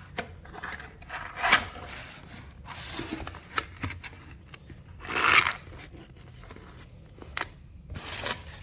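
Hands putting together a small item: short scraping and rubbing noises, loudest twice, with scattered light clicks.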